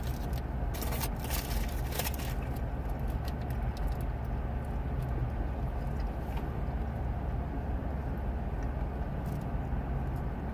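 Steady low hum of a vehicle's engine idling, heard from inside the cabin, with a few short sharp crackles and clicks in the first two seconds or so.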